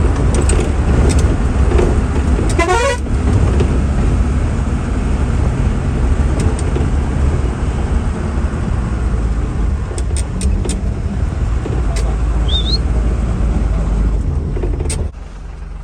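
Bus engine and road noise rumbling steadily, heard from inside the moving vehicle, with a brief wavering horn blast about two and a half seconds in. The rumble falls away suddenly near the end.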